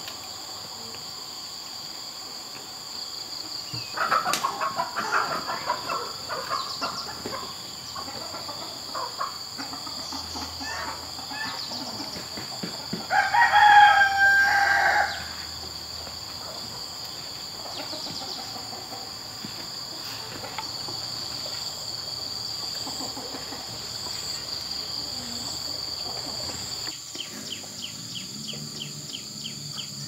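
A rooster crowing once, loud and about two seconds long, roughly halfway through, after a spell of shorter scattered calls, over a steady high insect drone.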